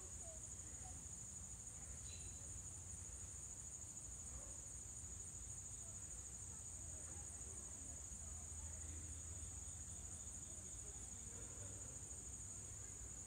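Steady, high-pitched chorus of insects trilling in summer woodland, with a faint low rumble underneath.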